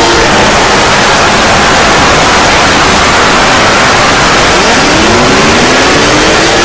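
Emergency alert alarm sound: loud, harsh static-like noise. Faint siren tones gliding downward fade out just after the start, and new siren tones sweep upward under the noise about five seconds in.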